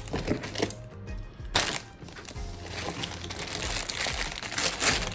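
Background music, with a few sharp rustles and clicks from plastic bags of Lego pieces being handled.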